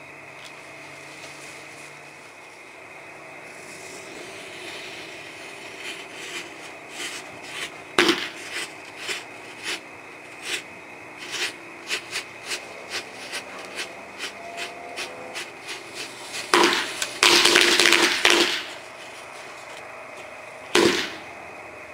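Firecrackers going off inside a burning jack-o'-lantern: scattered single pops from about six seconds in, then a rapid string of loud bangs a few seconds before the end, and one more loud bang near the end.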